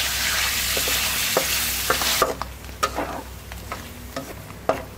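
Cubes of pork back fat sizzling and crackling in a pan as the water cooks off and the fat renders out, stirred with a wooden spatula. A dense hiss gives way abruptly, about two seconds in, to quieter, scattered pops and crackles.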